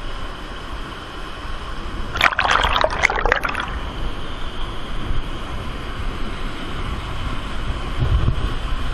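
Underground river water rushing steadily through a cave passage. About two seconds in there is a burst of close splashing lasting over a second, and a low rumble near the end.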